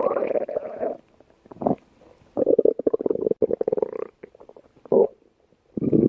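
Stomach growling: a series of gurgling rumbles with a fast, rattly pulse, coming in bursts with short pauses between. The longest burst is in the middle, and a new one starts just before the end.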